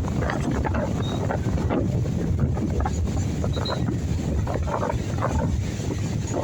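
Strong sea wind buffeting the microphone in a steady rumble with irregular gusts, over the wash of ocean surf.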